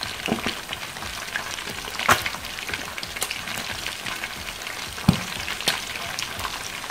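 Chicken leg quarters deep-frying in hot oil in a wok over high heat: a steady sizzle with scattered crackles and pops, and two louder cracks about two and five seconds in. The skins were boiled and dried before frying so that the oil spatters little.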